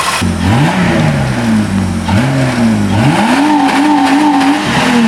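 Car engine revved up from idle three times: two short blips, then a longer rev held high with a slight waver before it drops back toward idle.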